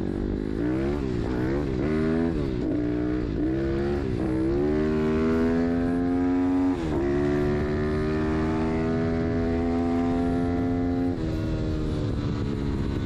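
A 140 cc four-stroke pit bike engine with a Scalvini exhaust, heard from on the bike while riding. The revs rise and fall with the throttle for a few seconds, then climb steadily under acceleration. There is a short break about seven seconds in, like a gear change, and the revs drop sharply near the end as the throttle closes. Steady wind noise runs underneath.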